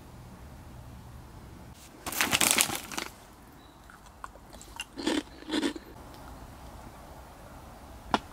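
Crunching of crisp crackers from an open snack bag: a loud crunchy stretch of about a second starting about two seconds in, then two short crunches close together around the five-second mark. A single sharp click comes near the end.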